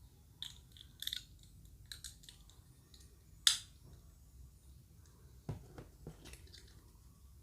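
Plastic and wrapper from a Kinder Joy surprise egg being handled and opened, with scattered crinkles and clicks. A single sharp snap comes about three and a half seconds in, and a soft thump about two seconds later.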